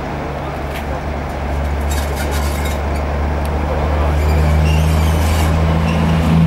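Class 33 diesel-electric locomotive running at low power as it approaches slowly, a steady low engine drone that grows louder about four seconds in.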